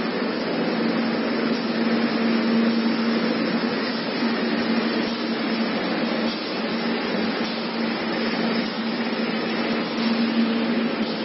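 Paper edge board (edge protector) machine running steadily: an even mechanical rushing noise with a constant low hum and no distinct strokes.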